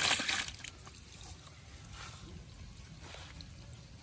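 A heap of wet small fish sliding and slapping out of a metal bowl into a plastic basket, a rush that dies away about half a second in. After that there are only faint, brief handling sounds.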